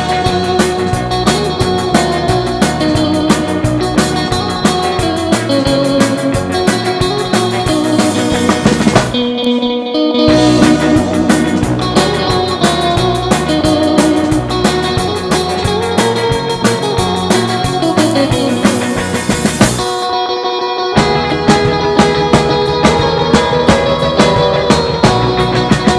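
Rock band playing, with electric guitar over bass and drums at a steady beat. The bass and drums drop out briefly twice, about a third and about three quarters of the way through.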